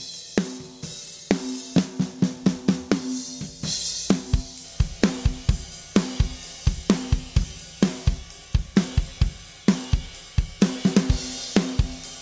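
Recorded drum kit groove with snare, kick and cymbals. The snare rings on each backbeat and the kick comes in strongly about four seconds in. The snare is passed through an 1176-style FET compressor emulation set to a slow attack, which brings out its body and snap.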